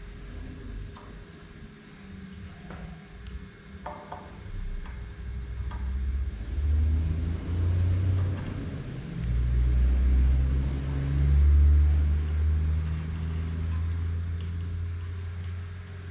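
Light clicks and small knocks of fuel-rail parts being worked onto the injectors of an intake manifold in the first few seconds, then a low rumble that swells from about six seconds in and is the loudest sound. A thin high-pitched chirp pulses a few times a second throughout.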